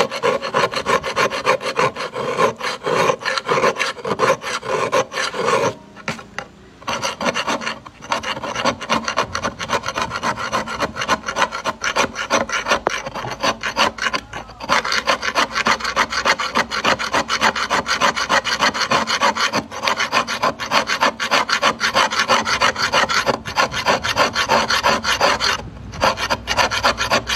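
Fast, rasping metal-on-metal scraping strokes, made by a curved steel blade worked back and forth across a steel blade clamped upright in a wooden board, much like filing. It stops briefly a few times, around six, eight, fourteen and twenty-five seconds in.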